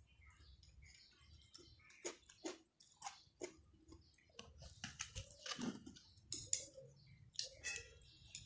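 A person chewing food close to the microphone, with irregular wet smacking and sharp clicking mouth sounds.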